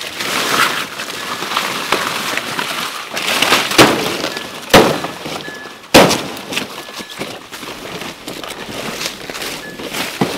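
Banana leaves rustling and crackling as they are grabbed and pushed through, with three sharp cracks about four, five and six seconds in.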